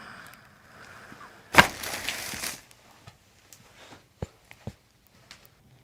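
A single sharp crack about one and a half seconds in: a spinal joint popping under a chiropractor's adjustment thrust. About a second of soft rushing noise follows, then a few faint clicks.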